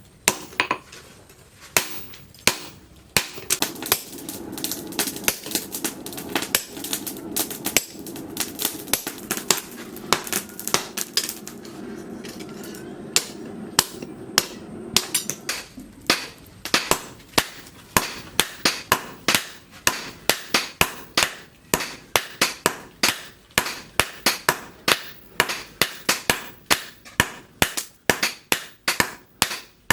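Hammer blows ringing on steel over an anvil as a leaf spring is forged, in a quick steady rhythm of about two to three strikes a second. A steady hum runs under the blows for about the first half.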